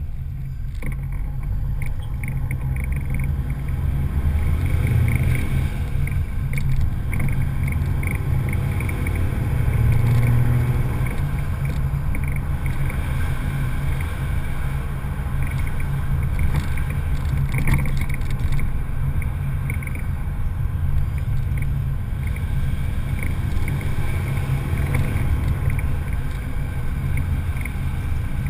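Land Cruiser HDJ80's turbo-diesel straight-six running as the truck drives along, heard from outside the vehicle as a steady low rumble mixed with road and wind noise. The rumble swells a little about five and ten seconds in.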